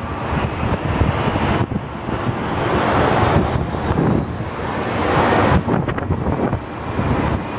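Wind gusting on the microphone over the jet engine noise of an Airbus A321-200 taxiing onto the runway, the mix swelling and easing.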